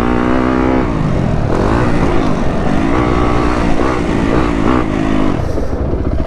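Four-stroke single-cylinder engine of a 2015 Yamaha YZ250F dirt bike under riding load, its pitch rising and falling several times as the throttle is opened and rolled off.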